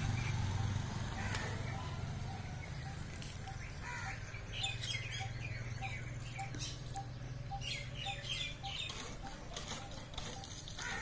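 Small birds chirping in quick high bursts in the trees, over a steady run of short low notes repeating about three a second. A steady low hum runs underneath and fades near the end.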